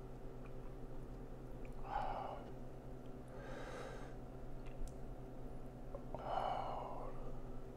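A person's breathing close to the microphone: three soft breaths a couple of seconds apart, over a faint steady electrical hum.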